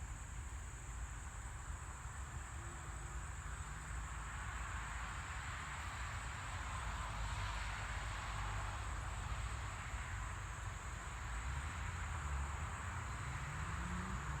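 A steady high-pitched chorus of night insects over a low rumble. Near the end a low hum rises in pitch, like an engine speeding up.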